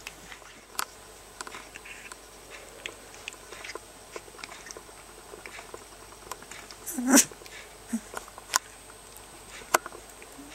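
18-day-old rough collie puppies giving a few short squeaks and whimpers, the loudest about seven seconds in, among scattered sharp clicks and rustles.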